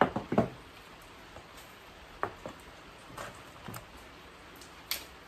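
Light clicks and taps from handling plastic seed-sowing gear, a brush worked over a plug cell tray and a flat plastic seeding board: a quick burst of sharp clicks at the start, then a few scattered single ticks.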